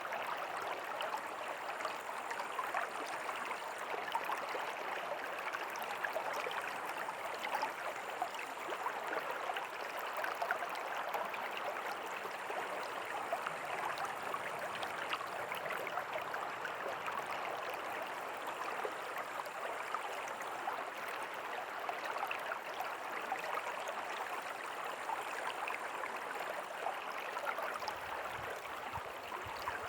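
River water flowing steadily: an even, unbroken rush of moving water.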